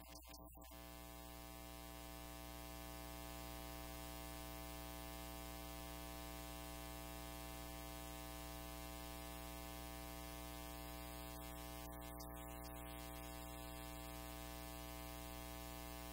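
A steady electronic buzzing drone held at one pitch with many overtones. It swells in over the first two or three seconds, then holds level without change.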